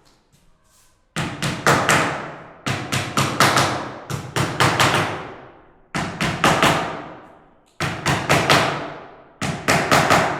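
Hammer driving nails into a wooden door: quick runs of sharp strikes, each trailing off with a short ring, starting about a second in and coming in several bursts with brief pauses between.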